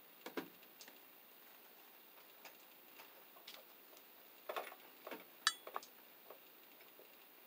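Hand wire strippers clicking and snipping as insulation is stripped from the black and white wires: a scattered series of faint clicks, the sharpest about five and a half seconds in with a brief metallic ring.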